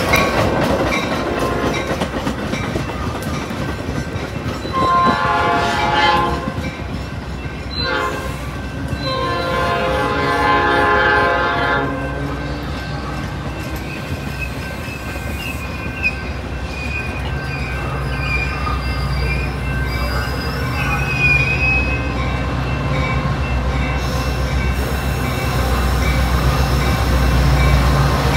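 Metra commuter trains: steel wheels of bilevel coaches clattering over the rails as a train passes. A train horn sounds a short blast about five seconds in and a longer blast from about nine to twelve seconds, with a thin wheel squeal after it. Near the end the low rumble of the approaching F40PH diesel locomotives grows louder.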